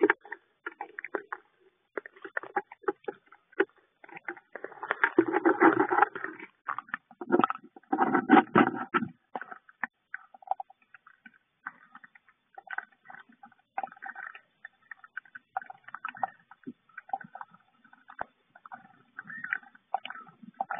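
Rustling, scraping and knocking as hands handle a wooden nest box and set the sparrow trap inside it, heard through a small camera microphone. It is loudest in two stretches in the first half, then fades to faint scattered scrapes and taps.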